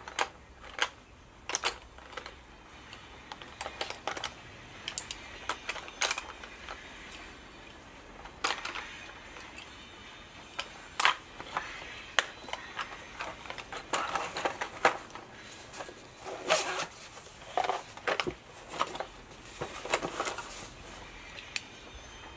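Faber-Castell Polychromos coloured pencils clicking and rattling against each other and their tin as they are picked through, with short rustles of handling in between. The clicks come irregularly, several each second at the busiest.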